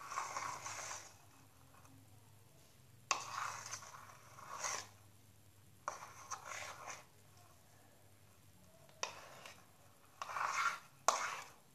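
Thickened flour slime being stirred and scraped around a bowl in short bursts of about a second, separated by pauses of a second or more.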